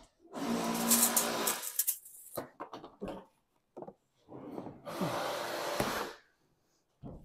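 Roll of sheet lead being unrolled and slid across a workbench: two spells of rubbing, scraping noise about two seconds each, with a few short knocks between them.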